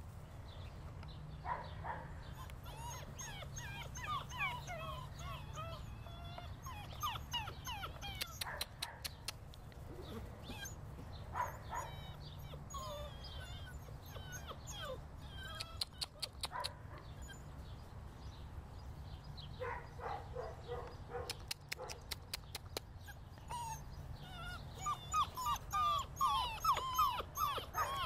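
Young German Shorthaired Pointer puppies whimpering and yipping in short high calls, coming more often and louder near the end.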